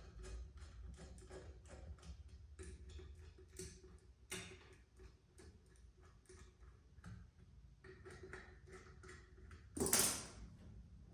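Quick light clicking from hand tools working on a motorcycle wheel, a few clicks a second, with one louder clank about ten seconds in.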